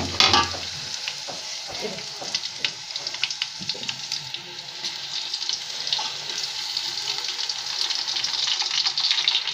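Onions frying in hot oil in a pot: a steady sizzle full of small crackles and spoon clicks. It is loud right at the start and grows louder toward the end as crushed ginger-garlic paste is scraped into the oil.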